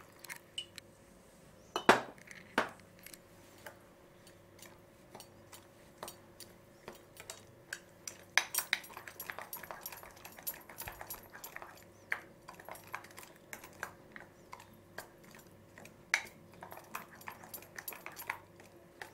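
Silicone spatula stirring a thick curd-and-semolina batter in a glass bowl, with irregular soft clicks and scrapes against the glass. There is a louder knock about two seconds in, and the clicking gets busier about eight seconds in.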